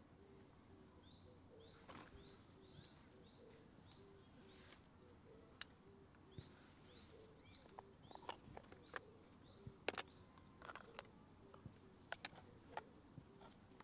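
Faint wood fire crackling, with scattered sharp pops that come thicker in the second half, under a bird calling in quick, repeated short rising chirps.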